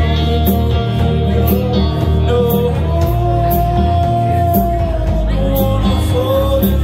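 Live rock band playing electric guitars and a drum kit, with a cymbal struck about once a second. A long note is held from about three seconds in to nearly five.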